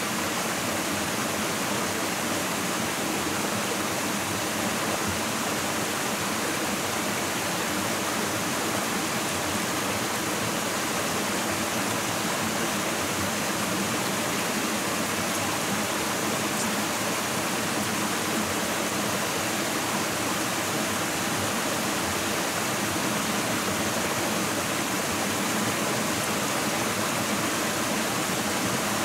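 Steady, even rush of running water with no change in level.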